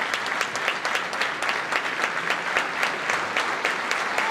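A roomful of people applauding steadily: many hands clapping in a dense, even patter.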